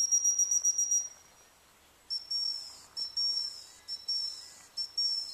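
Gundog whistle blown in a quick run of about eight pips, then four longer toots that each drop slightly in pitch at the end: whistle signals to a retriever working in the field.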